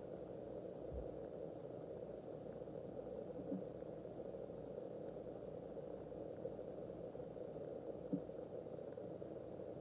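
Steady low hum of room tone, with a couple of faint soft knocks.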